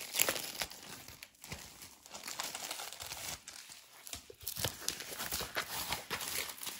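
Irregular crinkling and rustling of a rolled diamond painting canvas in its clear plastic wrap as it is handled and unrolled, its paper backing sheet rustling.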